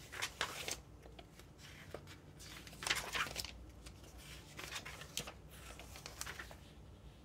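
Hands handling LEGO pieces and paper on a desk: scattered short rustles and light clicks, loudest about three seconds in.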